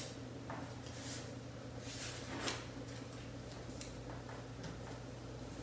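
Cut magazine paper being handled and pressed down by hand onto glued paper: a few soft rustles and scrapes, with a sharper tap about two and a half seconds in, over a steady low hum.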